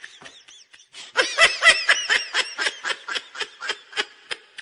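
Laughter: a rapid run of short 'ha-ha' pulses, about four a second, starting about a second in.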